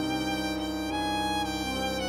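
Background music of long held notes, moving to a new note about a second in and again near the end.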